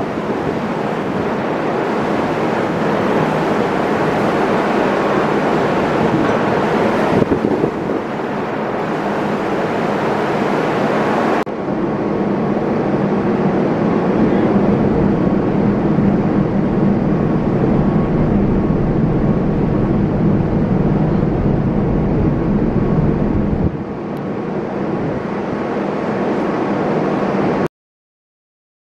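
Ship's engine drone and rushing wind and water on a ferry's open deck, steady and loud. The sound changes abruptly twice, then cuts off near the end.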